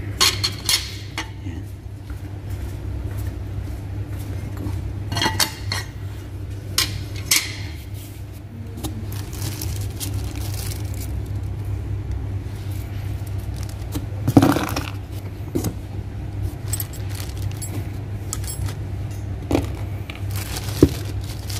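Steel parts of an OS Giken twin-plate clutch (clutch plates and flywheel) being handled, clinking and knocking against each other at irregular moments, with the loudest knock a little past the middle. A steady low hum runs underneath.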